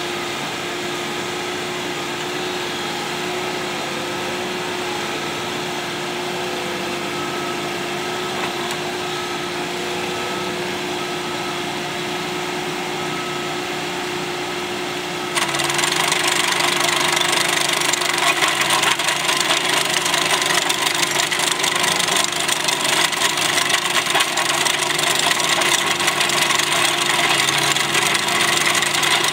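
Ditch Witch compact tracked trencher running steadily while its digging chain cuts through soil. About halfway through the machine gets suddenly louder and harsher, and it stays so.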